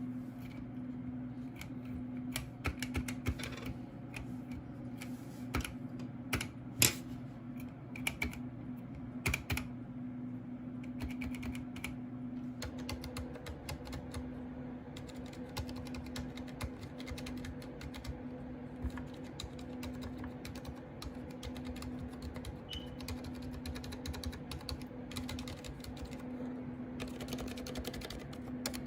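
Typing on a Ducky One 2 Mini mechanical keyboard with Cherry MX Silent Red switches: a dense, continuous run of key presses with some louder keystrokes here and there, over a steady low hum.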